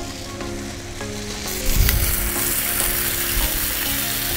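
Bacon strips sizzling hard on a Blackstone steel griddle heated to about 450–500 degrees. About a second and a half in, the sizzle jumps much louder with a low thump, and metal tongs work the strips.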